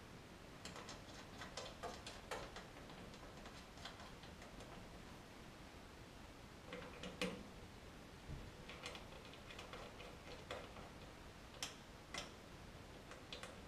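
Faint, scattered clicks and light metallic ticks of steel 1/4-20 grade 5 bolts being turned by hand into coil-spring thread inserts in the sheet-steel radiator housing, as the bolts are test-fitted in the new inserts. The clicks come in small clusters, with the sharpest about halfway through.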